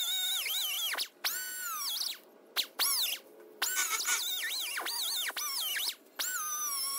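Pneumatic die grinder with a small disc grinding bare steel to prep it for welding: a high whine that drops in pitch as the disc is pressed into the metal and climbs again as it eases off. The tool stops and restarts several times.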